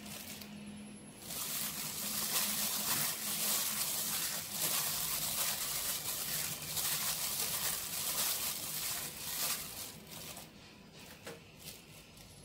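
Hand in a plastic glove mixing a salad of sliced onion, herbs and fermented pork sausage in an aluminium pot: crinkling plastic and rustling ingredients. It starts about a second in and thins to a few light clicks near the end.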